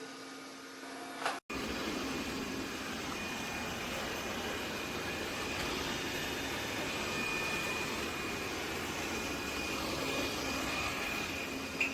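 Roborock Qrevo Edge robot vacuum running: a steady rushing whir with a faint high whine. It starts abruptly about a second and a half in, after a low hum and a click.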